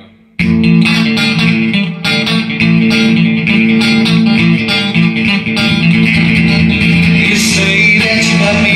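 Solid-body electric guitar being played, ringing chords and notes in a steady pattern. It comes in after a brief break about half a second in.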